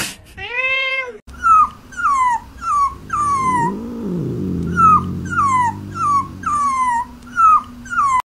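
A cat's single meow, then a puppy whimpering: a string of about a dozen short, high cries, each falling in pitch. A lower drawn-out growl sits under the cries in the middle.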